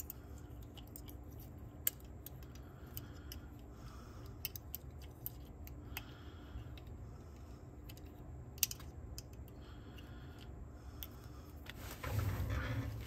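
Scattered small clicks and ticks of fingers and a thin wire tool working a rubber belt onto the pulley of a Nakamichi cassette deck's plastic azimuth-control mechanism, over a low steady hum. Near the end there is a louder stretch of rustling handling noise.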